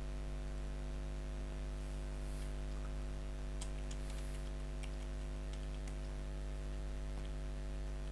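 Faint computer keyboard key clicks, scattered through the middle, over a steady electrical mains hum.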